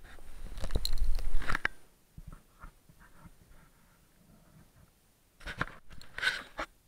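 Mountain bike rolling over a wet, stony track: tyres crunching on gravel and the bike rattling over stones. It is loudest in the first two seconds and again near the end, with scattered clicks in between.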